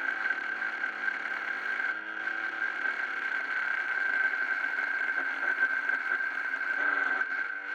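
Home-made 12 V DC-motor angle grinder running steadily, with a constant high whine.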